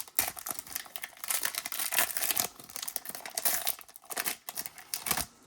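Crinkly wrapper of a baseball card pack crackling and tearing as it is ripped open by hand; the crinkling stops just before the end.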